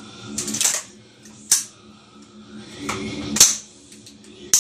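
An AR-style rifle's action being function-tested dry: four sharp metallic clacks as the charging handle and bolt are cycled and the hammer drops on dry fire, the loudest about three and a half seconds in, with short sliding rattles before some of them.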